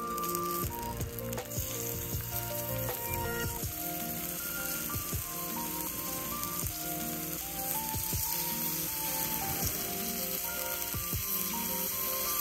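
Beef slices sizzling steadily on a black iron griddle plate over hot coals, with background music playing.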